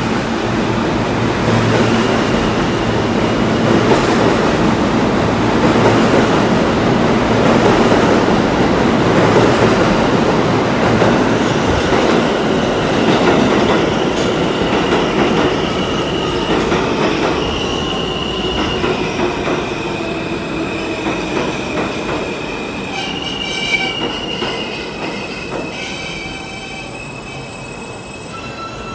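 Subway trains in an underground station. A train running past on the near track gives a heavy rumble that is loudest early on and then fades. An R160 train on the far track then pulls in, its wheels squealing high on and off as it rolls to a stop.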